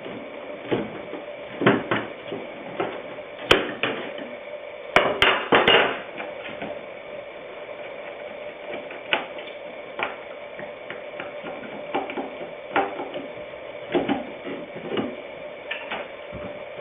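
Screwdriver, screws and the wooden frame of a touchscreen computer clicking and knocking as the frame is unscrewed and taken off: irregular light knocks, busiest about four to six seconds in, over a faint steady hum.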